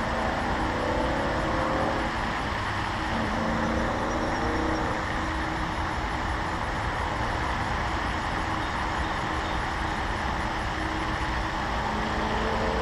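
Steady background noise, an even hiss over a low rumble, with no distinct events.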